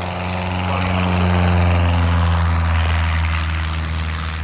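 Citabria light single-engine plane making a low fly-by: its piston engine and propeller drone swells to a peak about a second and a half in, then eases off, with a slight drop in pitch as it passes.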